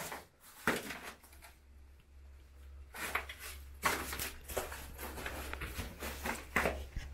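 Irregular scuffs and crunches of footsteps on a floor littered with dead leaves and debris, a few seconds apart, over a low steady hum.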